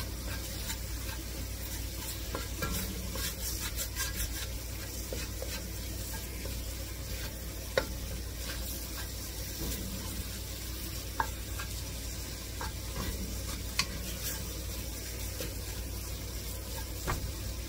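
Wooden spoon stirring diced carrots and vegetables coated in flour in an enamelled cast-iron pot, with a soft steady sizzle as the flour cooks out its raw taste. A few light taps of the spoon against the pot.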